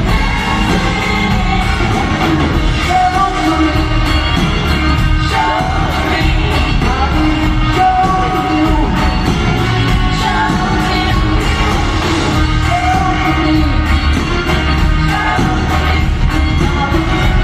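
Live rock band playing in a large arena with lead singing over bass and drums, and audience shouts and whoops mixed in.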